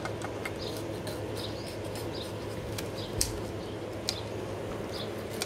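Knives and scissors working on small fish on wooden cutting boards: scattered light scrapes, snips and clicks, with one sharper click about three seconds in, over steady background noise.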